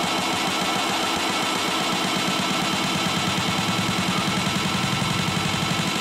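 Electronic dance music dominated by a fast, buzzing synth bass pulse, with steady high synth tones above it.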